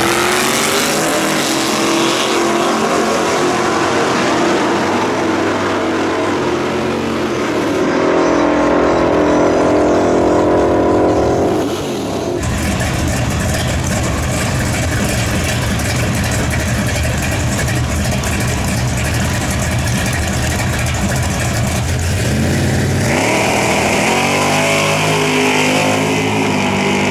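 Drag-race engines at the strip: a Chevrolet S-10 pickup's engine held at high revs during a burnout, louder near the middle, then cut off. After that a 1966 Chevrolet Chevelle's engine rumbles at the line and, a few seconds before the end, launches hard, its pitch rising steeply as it pulls away.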